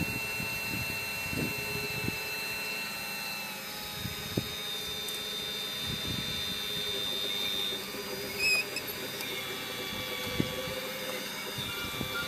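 Scale RC Caterpillar 345D hydraulic excavator's pump and electric motors whining steadily under load, the pitch stepping as the controls change, with a few knocks as it struggles up a packed clay slope, pushing with its boom.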